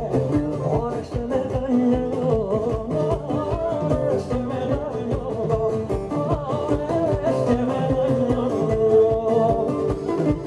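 Live Cretan folk music: a bowed Cretan lyra carrying the melody over the strummed laouto (Cretan lute) and the band, with a man singing.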